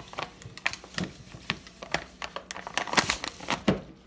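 Quick, irregular clicks and knocks of kitchen utensils and containers being handled while ingredients are measured, densest and loudest about three seconds in.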